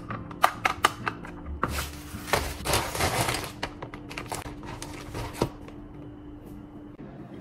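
Plastic bread bag crinkling and rustling as it is handled and opened, after a few sharp clicks of a plastic tub being handled in the first second.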